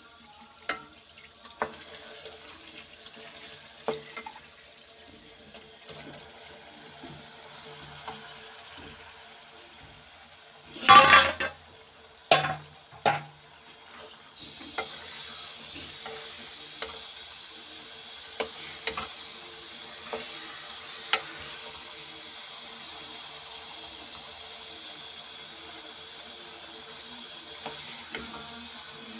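Wooden spatula knocking against a metal pot while stirring potatoes in masala. About eleven seconds in comes a burst of loud clattering as chopped eggplant goes into the pot, then a steady sizzle of the vegetables frying, with now and then a knock of the spatula as they are turned.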